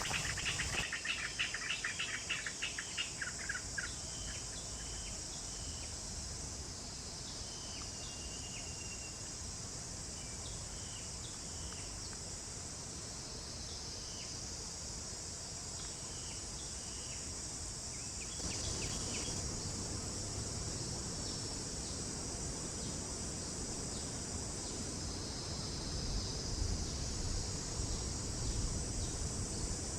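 Steady high-pitched insect chorus with a quick run of chirps in the first few seconds, then scattered single chirps until about two-thirds of the way through.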